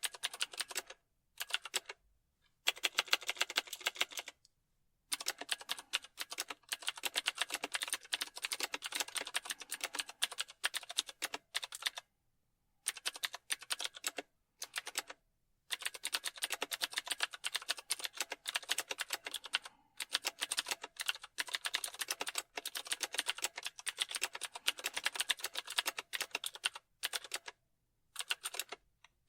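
Computer keyboard typing: fast runs of key clicks broken by several brief pauses.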